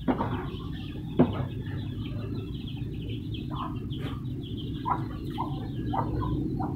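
Birds giving short, repeated calls over a low steady background, with sharp knocks from the wooden cage being handled at the start and again about a second in.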